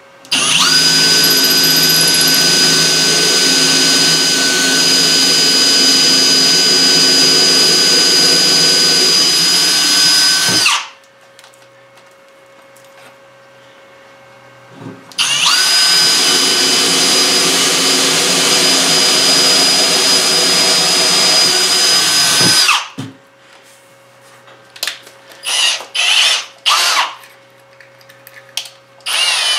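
Power drill with a small bit boring through solid mahogany: two long steady runs of the motor, about ten and seven seconds, its whine rising as it spins up and dropping as it stops, followed by several short bursts near the end as the bit breaks through.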